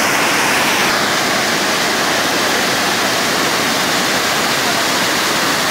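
Lake water spilling over the crest of a long overflow weir and rushing in white water down the spillway apron: a steady, loud rush of falling and churning water.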